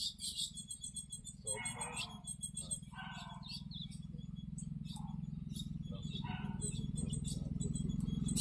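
Birds chirping and calling in short high notes, over a steady low motorcycle engine idling that grows slowly louder.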